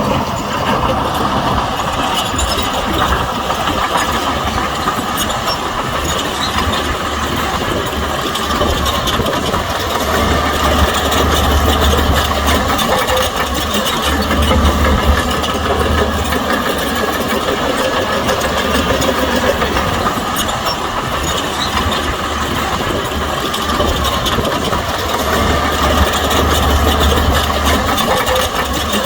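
Shantui bulldozer's diesel engine running steadily as it works soil, its deep low rumble swelling several times.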